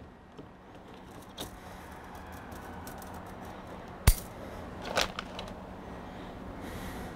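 Aluminium bonsai wire being handled and cut from its coil on a metal-topped table: light metallic clinks and ticks, one sharp snip a little after four seconds, then a short cluster of clinks about a second later.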